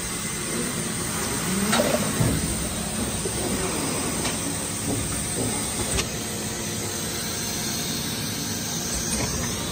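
NPC injection molding machine with in-mold labelling system running as it turns out printed plastic cups: a steady mechanical hiss and hum, with a few light clicks and knocks in the first six seconds.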